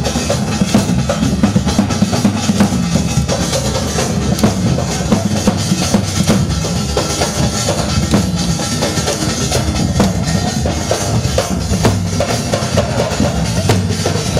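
Loud, continuous drumming for a Gair folk dance: a heavy drum beat with many quick, sharp strikes and no pause.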